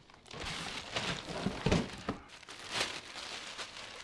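Packaging being handled: the scooter's cardboard box and its plastic bag rustling and crinkling in irregular strokes.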